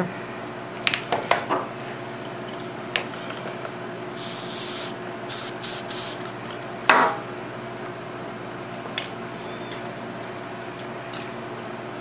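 Aerosol can of CRC battery terminal protector sprayed in a short hiss about four seconds in, followed by a few brief spurts. Scattered clicks and handling rustles surround it, with one sharp knock about seven seconds in.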